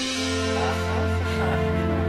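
Background music with held notes over a steady low note.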